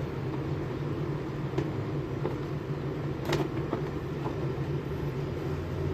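Mitsubishi Electric split air conditioner's outdoor unit running with a steady hum while its refrigerant is being blocked off for pump-down, with a few light clicks and taps of tools on the unit.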